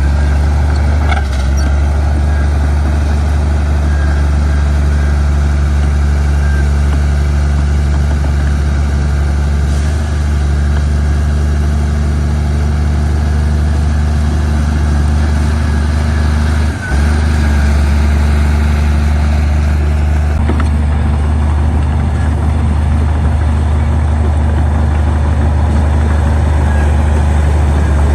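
Heavy diesel engine of earthmoving machinery running steadily with a deep hum, dipping briefly once more than halfway through.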